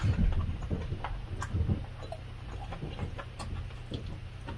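Close-miked chewing and mouth sounds while eating, with small scraping ticks and a couple of sharp clicks of a spoon and fork against a plastic food tray, about a second and a half in and again near the end.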